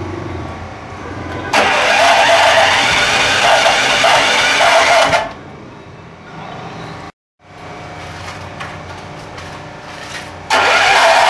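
Small air-cooled single-cylinder petrol engine of a 2.5 kVA portable generator running. It cuts in loudly about one and a half seconds in and drops quieter around the middle, with a moment of silence. It is loud again near the end.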